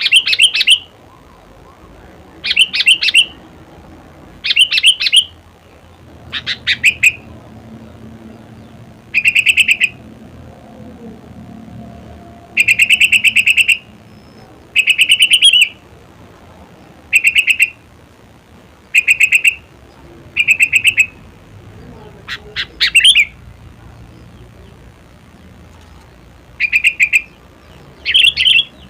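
Sooty-headed bulbul (kutilang) singing: short bursts of quick, bright chattering notes, repeated every one to two seconds.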